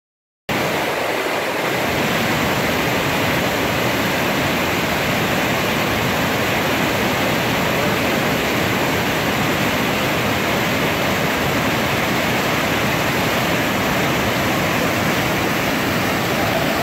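Whitewater rapids rushing over boulders: a steady, loud wash of churning water that comes in after a split-second gap at the very start.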